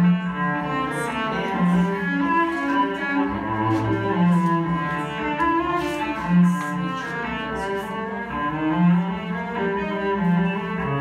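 Cello music played as a background track: bowed cello lines, a melody moving over a low note that sounds again and again.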